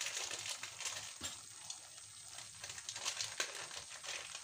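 Thick masala gravy sizzling and crackling gently in a kadhai on low gas, small irregular pops throughout, with spice powders freshly added on top.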